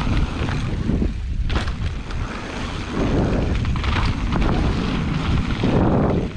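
Wind noise on the microphone and the rolling rumble of a mountain bike's tyres going fast down a dirt trail.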